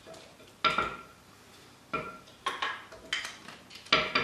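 About five sharp clinks of kitchenware, each with a short ring, spread over four seconds, as glass spice jars and shakers are handled and set down on the worktop.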